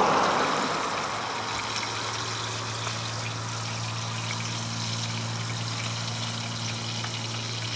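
Whole fish frying in hot oil in a steel pan, a steady hissing sizzle with faint crackles, louder in the first second and then even. A steady low hum runs underneath.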